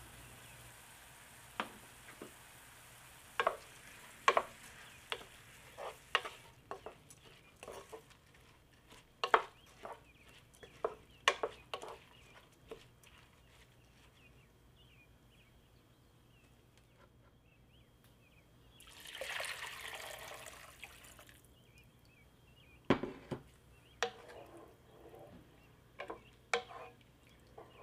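A wooden spoon stirs raw basmati rice with whole spices in a coated cooking pot, with sharp taps and scrapes of the spoon against the pot. About two-thirds of the way through, water pours into the pot for about two seconds. The spoon then goes on stirring the rice in the water with more taps.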